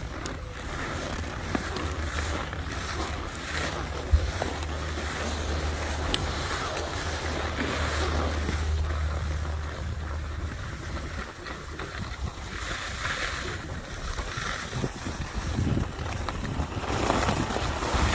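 Wind buffeting the microphone of a camera carried by a downhill skier, over the hiss of skis sliding on groomed snow. A low rumble eases off about ten seconds in, and swishes of turning skis come through near the end.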